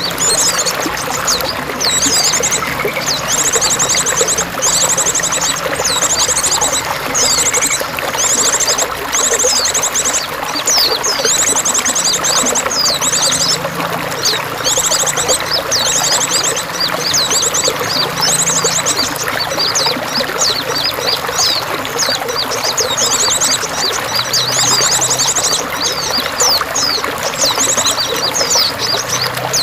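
Running water splashing steadily, with small birds chirping over it in quick high notes and repeated fast, rattling trills, each lasting under a second.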